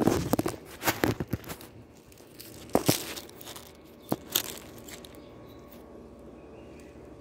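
Crinkling, crunching handling noises: a scattered run of sharp clicks and crackles over the first four seconds or so, then they stop.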